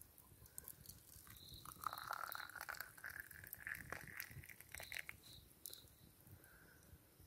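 Liquid poured from a small camping kettle into a bamboo cup: a trickling stream for about three seconds from roughly two seconds in, its pitch rising a little as the cup fills. A wood fire crackles lightly throughout.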